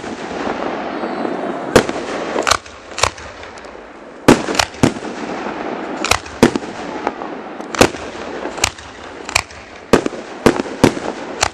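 Fireworks going off: a rapid, irregular string of sharp bangs, well over a dozen, with crackling hiss between them, heaviest in the first couple of seconds.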